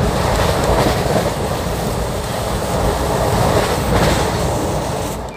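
Railway train running on the track: a loud, steady rumble and rattle of wheels on rails that drops off abruptly near the end.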